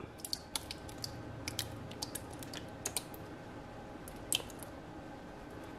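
Chunky salsa poured from a glass measuring cup over chicken breasts in a stainless-steel pot insert: faint, irregular wet plops and small ticks, with one sharper click a little past four seconds in.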